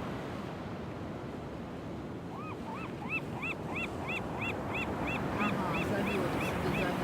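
Gull calling a rapid run of short notes that rise and fall in pitch, about three a second, starting a couple of seconds in, over steady Pacific surf.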